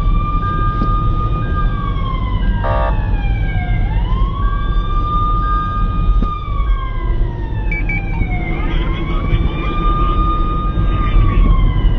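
Emergency vehicle siren wailing: each cycle rises quickly, holds briefly and falls slowly, about every four and a half seconds, over a steady low rumble of road or engine noise. A short repeated beep sounds during the first half.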